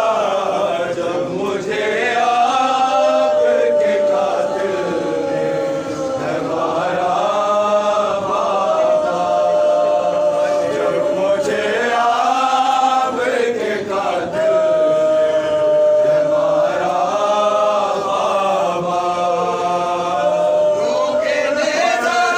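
Men's voices chanting a noha, a Shia mourning lament, in a slow melody with long held notes that rise and fall.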